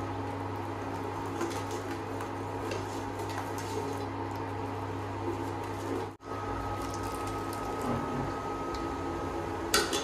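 Induction cooktop humming steadily, with light sloshing and ladle scrapes as curry paste and shrimp paste are stirred into hot water in a stainless steel pot. The sound cuts out for a moment about six seconds in, and then a thin high tone joins the hum.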